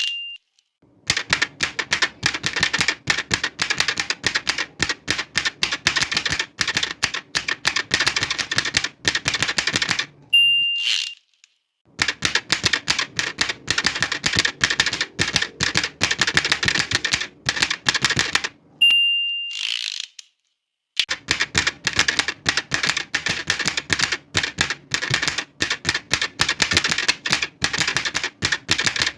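Old manual typewriter being typed on in three fast runs of clacking keystrokes. Twice the margin bell dings and the carriage is returned with a short zip before typing resumes.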